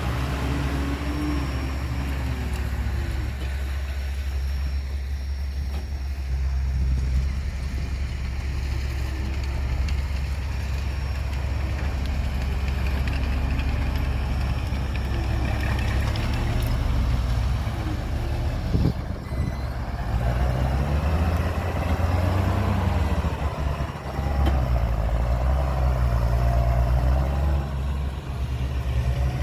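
Heavy diesel engine of a large truck or earthmover running steadily with a deep rumble, its pitch wavering now and then as the revs change.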